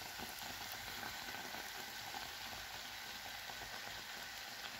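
Breaded sandwich-bread round deep-frying in hot oil in a saucepan, the oil sizzling steadily around it.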